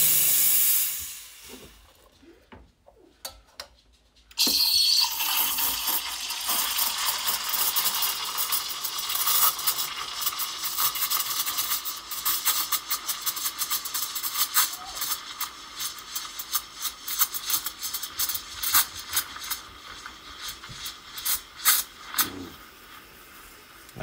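Espresso machine steam wand: a short blast of steam purged over the drip tray, dying away within about two seconds. Then, about four seconds in, steam hisses into a stainless milk pitcher with fast, irregular crackling as air is drawn into the milk, stretching it into microfoam for a latte. It eases off near the end.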